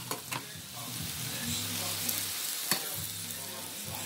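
Beef burger patties sizzling steadily in steak sauce and grease on a foil-lined griddle, with a few sharp clicks and a low hum that comes and goes.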